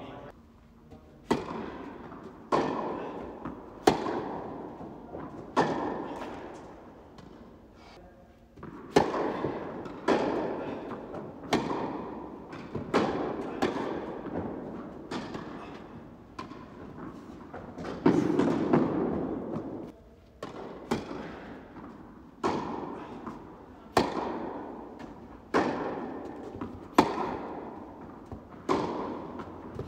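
Tennis balls struck by rackets and bouncing on an indoor court during a rally, each hit a sharp pop followed by a long echo in the hall. The hits come every second or so, with a pause near the start and another about a third of the way through.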